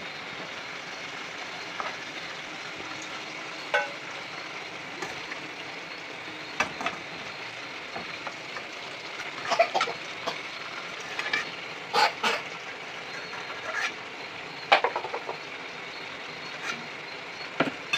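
Food frying in a steel wok on a gas stove, a steady sizzle with scattered short clinks and knocks of a metal ladle against the wok.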